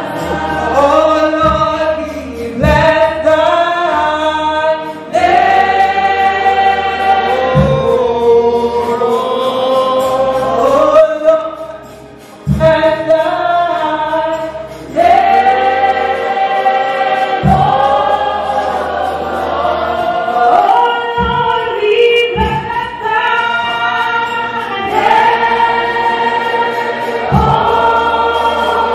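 Church congregation singing a gospel song together, with a steady low bass note under the voices and an occasional thump.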